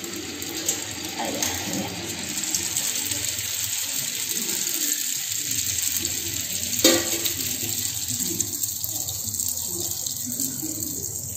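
Strip of yu char kueh dough deep-frying in hot oil in a steel wok, a steady bubbling sizzle that thins out in the second half. A single sharp knock about seven seconds in.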